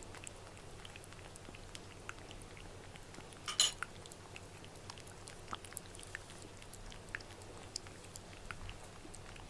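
A cat licking and eating a treat from a small metal dish: soft, scattered clicks of tongue and teeth, with one louder clink against the dish about three and a half seconds in.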